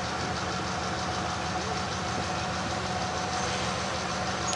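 A locomotive running steadily at a standstill: a low hum with a steadier mid tone above it and a fast, even pulse.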